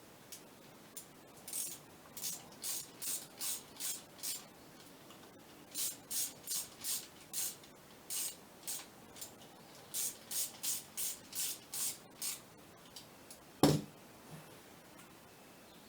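Repeated short rubbing or scraping strokes, about two and a half a second, in three runs with pauses between, then a single sharp knock near the end.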